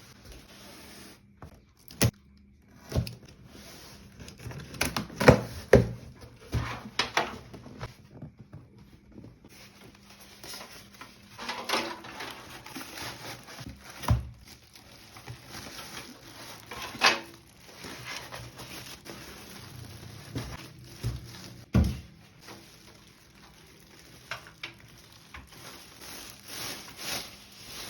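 Handling noise from unboxing a PC case: scattered knocks and clicks with rustling of the packaging, the loudest cluster of knocks a few seconds in.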